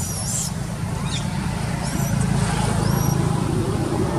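Shrill squeals from a young macaque at the start and again, fainter, about two seconds in, over a steady low rumble that grows louder about two seconds in.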